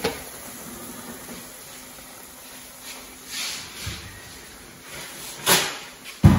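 Oil frying quietly in an electric deep fryer, a soft steady sizzle, with a few knocks and rustles of handling and a sharp thump near the end.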